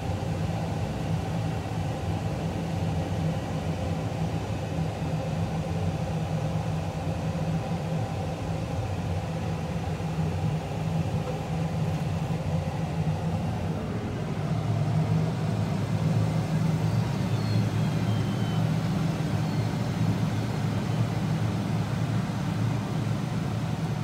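Deutz-Fahr 9340TTV tractor's 7.8-liter Deutz diesel engine working steadily under load as it pushes corn silage with a dozer blade, heard from inside the cab; the engine note grows louder about halfway through.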